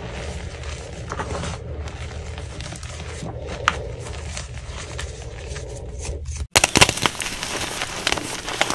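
Gym chalk being crushed and crumbled by hand: soft crumbling with scattered small cracks over a steady low hum, then after a break about six and a half seconds in, louder, dense crunching and crackling as the chalk blocks are squeezed.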